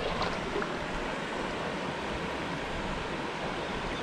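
Shallow river running over a bed of stones and pebbles: a steady rush of water.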